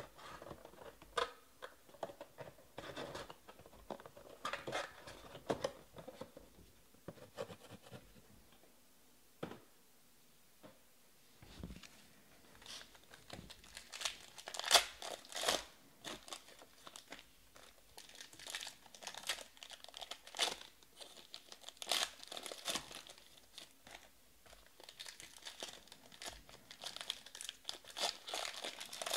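Foil Panini Prizm baseball card packs being torn open and crinkled by hand, in irregular crackly bursts. A quieter stretch about a third of the way through, then the loudest tearing and crinkling.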